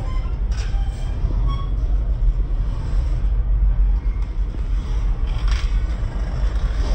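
Double-stack intermodal container train's well cars rolling past close by: a steady rumble of steel wheels on the rails, broken by a few brief metallic clanks and a short faint squeal about a second and a half in.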